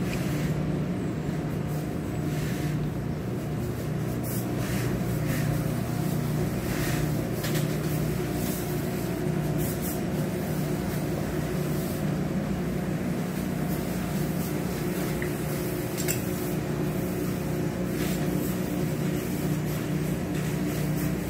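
Steady machinery hum of a garment workshop, several low tones held level, with short, sharper noises now and then.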